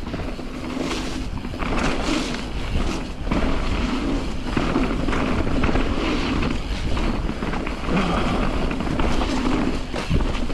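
Nukeproof Giga full-suspension mountain bike descending a dirt trail: tyres running over the ground and the bike rattling over bumps, with wind on the microphone.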